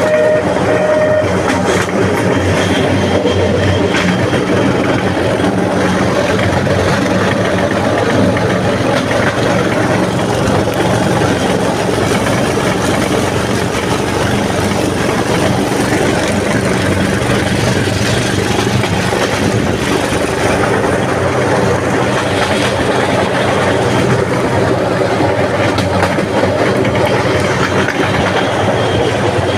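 Small homemade motorised rail trolley running steadily along the track: a constant engine drone with its wheels rumbling over the rails.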